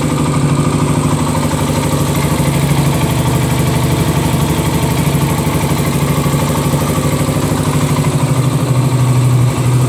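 Honda CB400SS's 397 cc air-cooled, carburetted four-stroke single-cylinder engine idling steadily.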